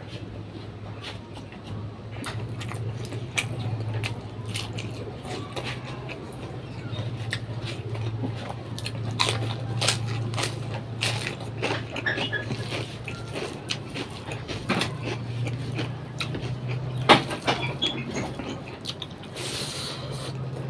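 Close-up eating sounds: chewing, wet mouth noises and short clicks and smacks at irregular intervals, over a steady low hum.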